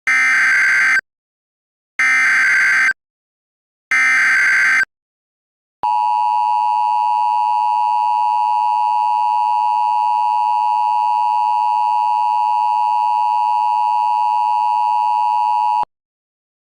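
Emergency Alert System broadcast tones: three short bursts of digital SAME header data, about a second each, then the steady two-tone EAS attention signal held for about ten seconds before it cuts off suddenly.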